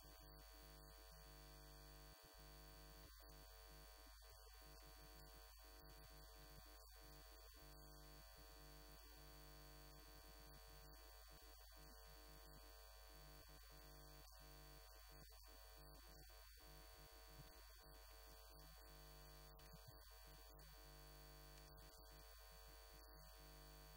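Near silence: a faint, steady electrical hum made of several constant tones, with a thin high whine above it and no speech.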